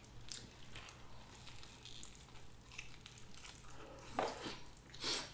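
Soft wet chewing and mouth clicks of people eating sushi hand rolls, with two louder mouth sounds about four and five seconds in.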